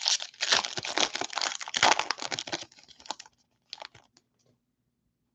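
Silver foil wrapper of a 2021 Bowman Baseball hobby pack being torn open and crinkled: a rapid dense crackle for about three seconds, then a few light clicks.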